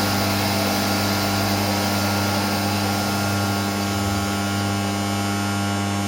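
SCM Minimax S45n bandsaw's electric motor giving off a steady low electrical hum.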